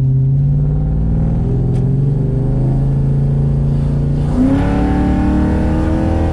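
LS1 5.7-litre V8 in a VN Commodore running steadily while the car is driven. About four seconds in, the throttle opens: the engine gets louder and its revs climb, then it eases off near the end.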